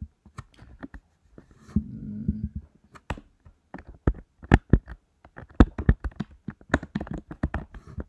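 Typing on a computer keyboard: a run of irregular keystrokes, a few scattered at first, then quick and dense through the second half.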